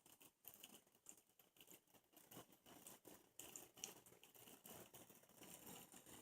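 Near silence: room tone with faint, scattered small ticks.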